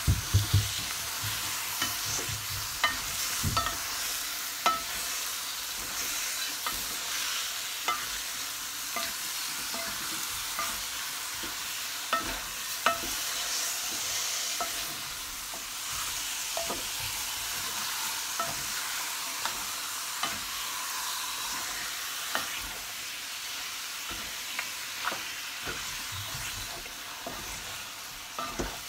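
Raw chicken pieces sizzling in a pot of hot curry, onion and seasonings, stirred with a spoon that clicks and scrapes against the metal pot every second or two. The curry has been fried in the oil before the chicken went in.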